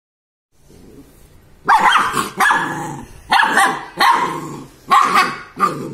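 Golden retriever puppy barking, about six sharp barks in quick pairs starting a couple of seconds in.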